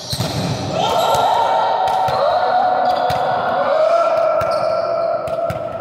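Volleyballs being struck and bouncing on a gym floor, sharp smacks echoing in the hall. Over them, from about a second in to near the end, runs a loud, long held tone that steps slightly lower in pitch partway through.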